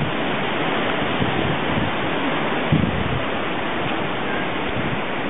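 Strong storm wind rushing through the leaves of a large tree as a steady hiss, with gusts buffeting the microphone in low rumbles, the biggest about three seconds in.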